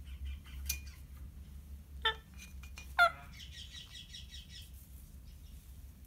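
Indian ringneck parakeet giving two short, sharp calls about a second apart, then a quick run of rapid chattering.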